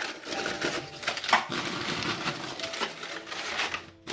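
Crunchy tortilla chips tumbling out of the bag onto a tray, crackling and clattering irregularly, with one louder crunch about a second in.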